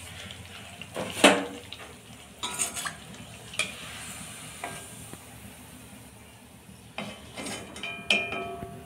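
Malpua deep-frying in oil in an iron kadhai, sizzling steadily, while a steel slotted spoon knocks and scrapes against the pan several times. The loudest clank comes about a second in, and there are ringing metal clinks near the end as a malpua is lifted out.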